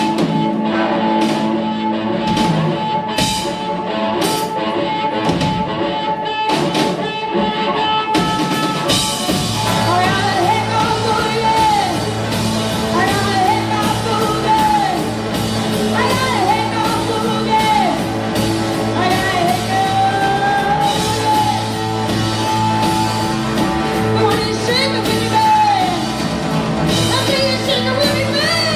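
Live blues-rock band playing a boogie. For the first eight seconds or so the band plays sparse, separate hits over a held note, then the full band with drums comes in, and a voice sings and shouts over it in bending, wordless lines.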